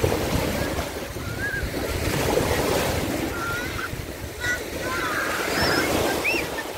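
Sea surf washing onto a beach, with wind on the microphone; a few faint, short high-pitched sounds over it.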